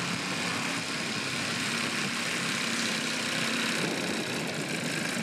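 The 156 cc engine of a 3.8 m RC-Pilot Bellanca model running steadily at low throttle while the model taxis.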